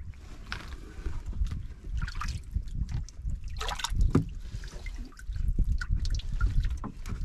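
Sea water lapping and trickling against the hull of a small wooden outrigger boat, with scattered small splashes and drips over a steady low rumble.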